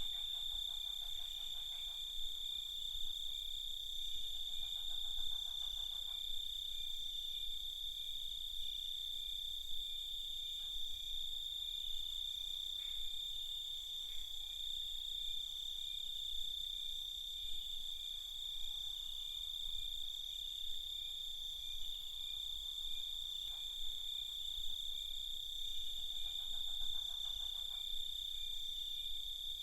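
Night chorus of crickets: a steady, unbroken high-pitched trill. A lower, pulsing trill joins in briefly a few times, near the start, around five seconds in and near the end.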